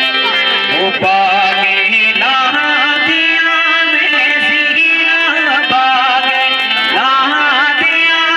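Background music: a Gojri pahari folk song, a melody with wavering, ornamented notes over steady held tones.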